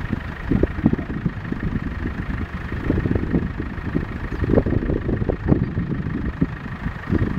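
Wind buffeting the camera microphone in uneven low gusts.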